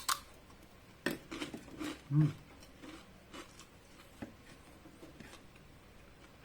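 Crunching bites and chewing of crispy chicharon (fried pork rind): a run of short crackly crunches through the first few seconds, thinning out later. A short low hum-like vocal sound about two seconds in is the loudest moment.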